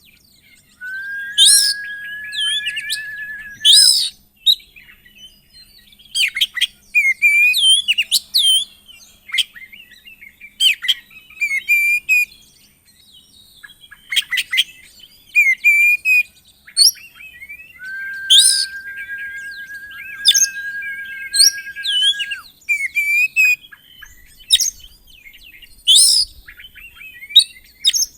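Oriental magpie-robin (kacer) singing a loud, varied song of sharp chips and quick sweeping whistled notes, with a long, steady held note about a second in and another, longer one past the middle.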